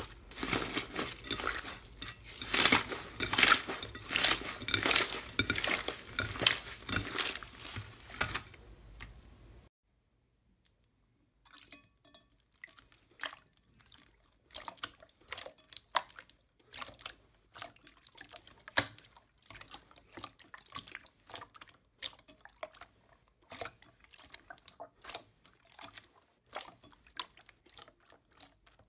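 Hands squishing magenta slime wrapped in crinkling foil, a fast run of loud crackles and squelches that stops abruptly about ten seconds in. After about two seconds of near silence, hands knead and press metallic silver slime, with quieter sticky pops and clicks.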